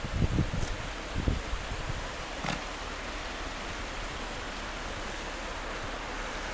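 Wind blowing over the microphone: a steady outdoor hiss with a few low buffeting gusts in the first second or so, and a faint click about midway.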